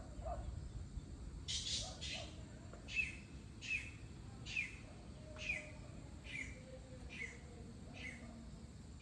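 A bird calling: two rough notes, then a steady series of about eight short, sharp notes, each dropping in pitch, a little under a second apart.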